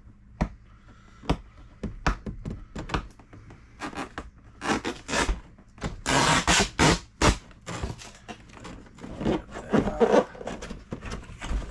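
Cardboard packaging being handled and worked open by hand: scattered knocks and thuds, then a run of loud scraping and rustling around the middle, with more irregular handling noise toward the end.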